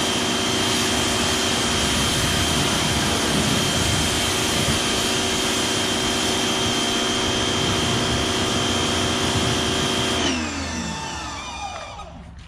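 Greenworks 2000 PSI electric pressure washer running steadily with a high whine, then shutting off about ten seconds in, its motor winding down in falling pitch.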